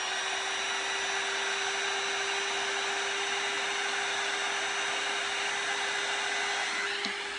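Handheld electric heat gun running steadily, blowing hot air over wet acrylic pour paint. Its fan makes an even rush of air with a steady hum and a faint high whine.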